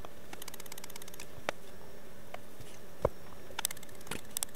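Small sharp clicks and short runs of fast ticking as a small signal relay is pushed into a solderless breadboard and switched under test, its contacts closing to light the indicator LEDs. The loudest click comes about three seconds in.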